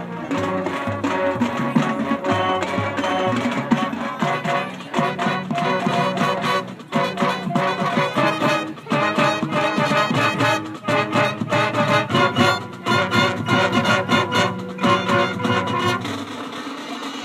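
High school marching band playing its field show: brass melody over a steady rhythm of drum hits. About sixteen seconds in, the low brass drops out.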